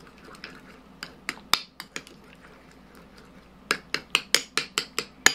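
Metal utensil clinking against a ceramic bowl while stirring a thick mayonnaise-based sauce: a few scattered clicks, then quick, even clinks about five a second near the end.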